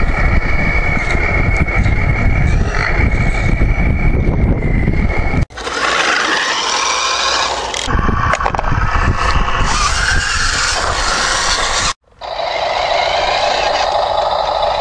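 Small electric motors and gearing of radio-controlled model trucks whining as they drive, with heavy wind noise on the microphone in the first part. The sound changes abruptly twice, ending in a steady, higher machine whine.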